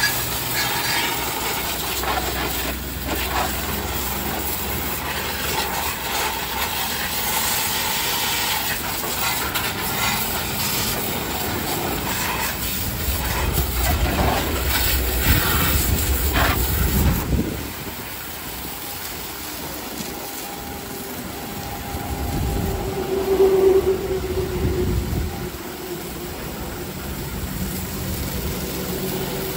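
High-pressure washer jet spraying water against a car's underside and wheels and onto wet concrete: a steady hissing spray with splashing. It quietens a little about halfway through, and a brief low tone rises over it about three-quarters of the way in.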